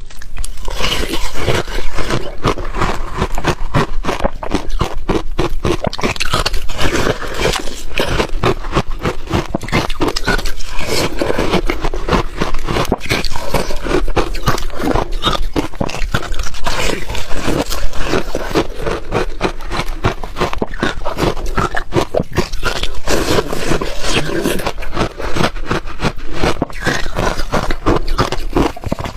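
Ice being bitten and chewed close to the microphone: loud, dense, continuous crunching and cracking.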